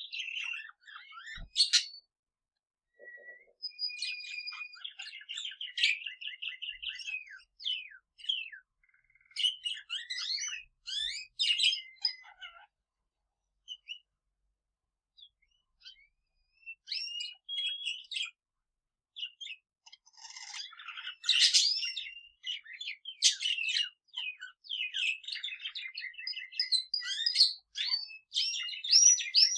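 Pet budgerigar warbling and male canary singing together: bursts of chattering notes and rapid trills, with a pause of a few seconds around the middle.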